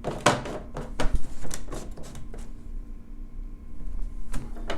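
Plastic parts of a humidifier being handled: a series of sharp clicks and knocks, clustered in the first two seconds and once more near the end, as the lid is fitted onto the tank.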